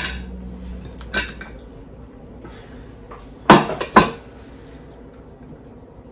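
Ceramic dinner plates clinking and knocking as food is slid from one plate onto the other and the plate is set back down: a light knock about a second in, then two sharp clatters about half a second apart around three and a half seconds in.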